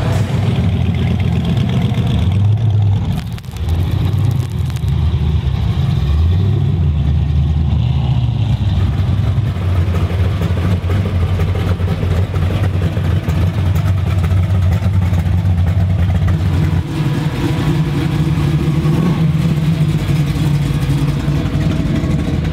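Classic cars' engines rumbling at low revs as they roll past, a deep steady engine note that steps up and down in pitch a few times, with a brief drop in level about three seconds in.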